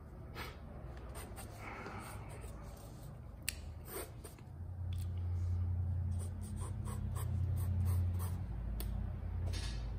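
Graphite pencil scratching on drawing paper in short shading strokes, with many small ticks of the lead against the paper. About halfway through, a low steady hum comes in and becomes the loudest sound.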